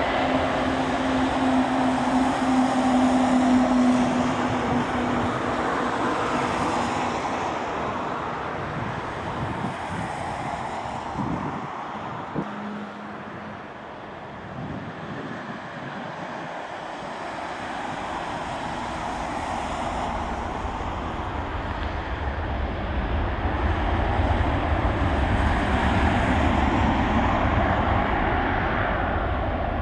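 Jet engine noise from an Airbus A330-223's twin Pratt & Whitney engines. A steady tone fades early on, the sound drops to a lull around the middle, and then it builds again into a deep rumble near the end.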